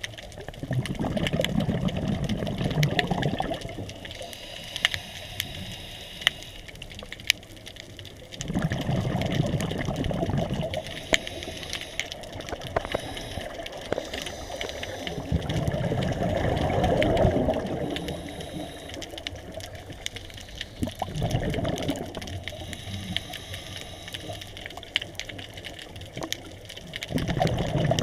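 Scuba diver breathing through a regulator underwater: bubbly exhalations about every six seconds, each lasting a couple of seconds, with a higher hiss of inhalation in between. Scattered sharp clicks run throughout.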